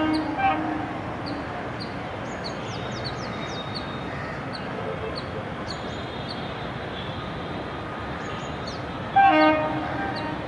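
Indian Railways electric locomotive horn sounding short blasts: one right at the start and another about nine seconds in. Between them is the steady noise of a running train.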